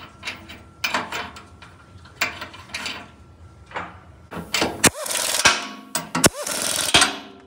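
Metal clinks as the transmission-mount nuts are started by hand on their studs, then a power ratchet runs in several short bursts over the last few seconds, spinning the nuts down onto the crossmember.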